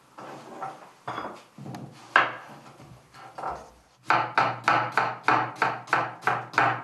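Chef's knife slicing an onion on a wooden cutting board. A few scattered knocks come first, then from about four seconds in a steady rhythm of knife strokes knocking on the board, about three to four a second.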